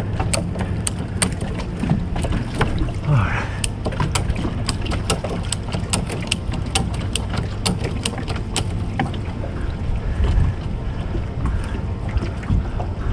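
A run of sharp clicks, about three a second, that stops about nine seconds in, over a steady rumble of wind on the microphone.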